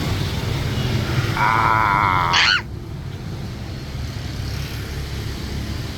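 Steady rumble of street traffic. A brief wavering high tone sounds about a second and a half in and sweeps sharply upward, and the traffic noise then drops abruptly.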